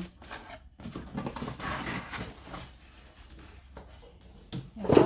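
Cardboard box and packing being handled during unboxing: rustling and scraping of the flaps and a cardboard insert, with one loud knock near the end.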